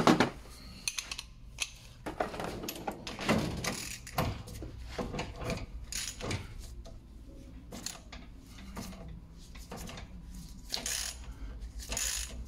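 Irregular metallic clicks and clanks of a ratchet and 24 mm socket on a long inner tie rod tool being worked to unscrew a car's inner tie rod from the steering rack.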